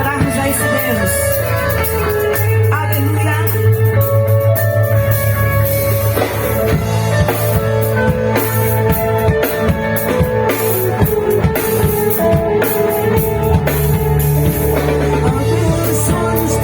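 A live worship band playing a song on keyboard, bass, electric guitar and drum kit, with the drumming getting busier about six seconds in.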